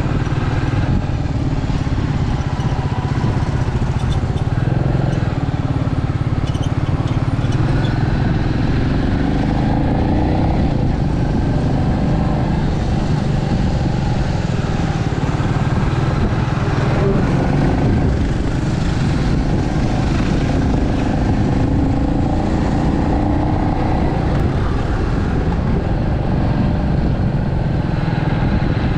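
Royal Enfield Meteor 350's single-cylinder engine and exhaust running steadily at cruising speed, its pitch rising and falling a little with the throttle.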